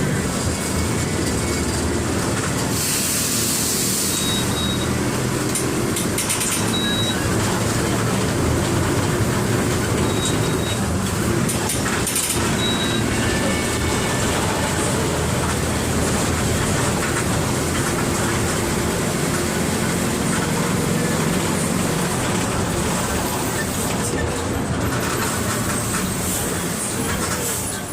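Mercedes-Benz OF 1721 BlueTec 5 bus's diesel engine running steadily, with a brief hiss about three seconds in.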